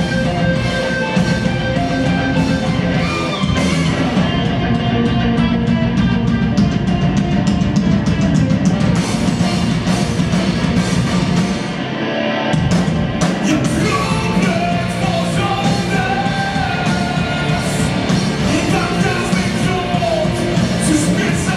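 Live rock band playing: electric guitars, bass and drum kit with a singer. About twelve seconds in the low end drops out briefly before the full band comes back in.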